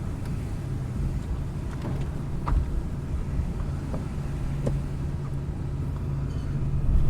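Car cabin noise while driving in strong wind: a steady low engine and road rumble, with a few faint ticks.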